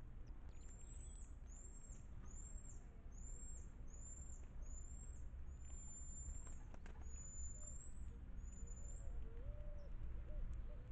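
A run of about ten high, thin whistled calls, each hooking down at the end, with low cooing notes joining near the end over a faint low rumble.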